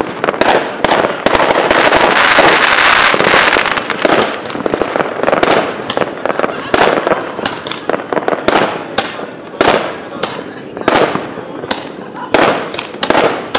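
Aerial fireworks bursting: a string of sharp, irregular bangs, with a dense, continuous crackle about two to four seconds in.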